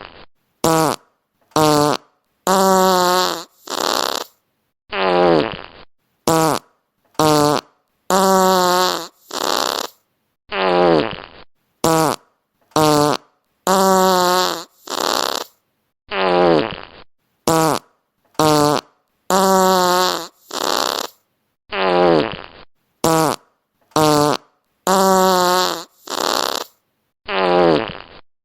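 Fart sound effects played one after another with short silences between: some brief, some about a second long with a buzzy pitched tone, one sliding down in pitch. The same set of about five sounds repeats roughly every five and a half seconds.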